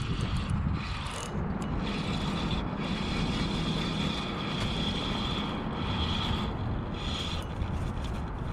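Shimano Ultegra spinning reel being cranked during a lure retrieve: a steady whir with a few brief pauses, over wind noise on the microphone.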